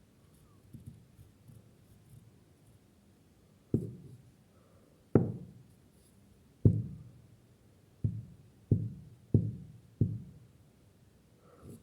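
A series of dull knocks: about seven separate thuds, the first a few seconds in, each dying away quickly, coming closer together near the end.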